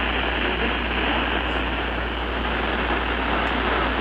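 Weather radio reception: a steady, loud static hiss over a low hum, with no clear broadcast voice coming through.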